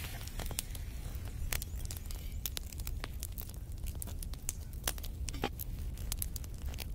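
Wood fire crackling: irregular sharp snaps and pops over a steady low rumble.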